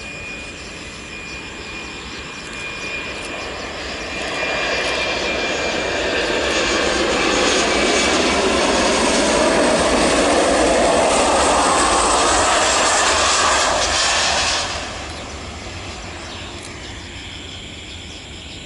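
Airliner engines passing close, growing louder for several seconds with a thin whine on top, then dropping off abruptly about fifteen seconds in.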